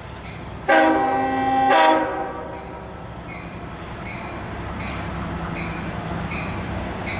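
Long Island Rail Road train horn sounding one loud chord blast of over a second, about a second in, with a brief break near its end. A bell rings steadily throughout, and the low rumble of the approaching train builds toward the end.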